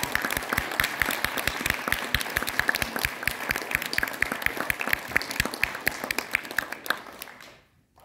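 Audience applauding, a dense patter of hand claps with single loud claps standing out, fading away about seven and a half seconds in.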